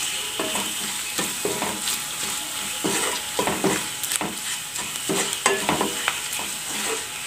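Wooden spatula stirring and scraping an onion-and-spice masala frying in oil in a non-stick kadai, in irregular strokes over a steady sizzle.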